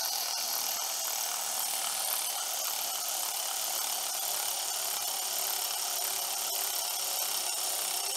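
Valve spring compressor's threaded bolt being turned down by a tool to compress a valve spring in the cylinder head: a steady, unbroken mechanical noise.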